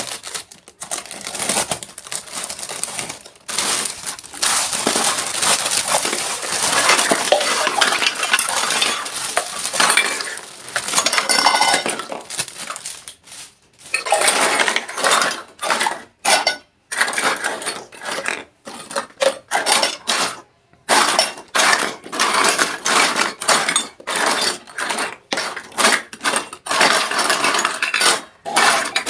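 Miniature steel toy cookware and utensils clinking and clattering as they are handled: a busy stretch of rustling and clatter, then a long run of separate light metallic taps and clinks.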